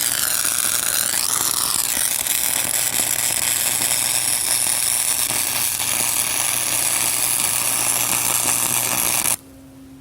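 Flux-core wire-feed welder arc crackling steadily as a nut is welded onto a broken bolt stub; the arc stops suddenly near the end.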